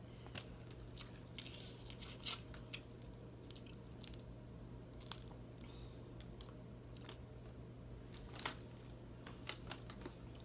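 Sharp clicks and cracks of boiled seafood shells being broken and picked apart by hand, with the sounds of chewing. The loudest crack comes a little over two seconds in. A low steady hum runs underneath.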